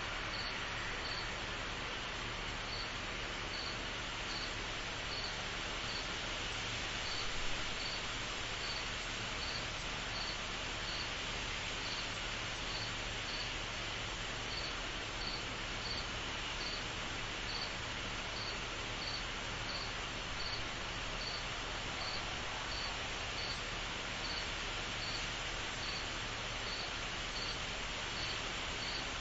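A cricket chirping in a slow, even rhythm, a little over one chirp a second with a few short pauses, over a steady hiss.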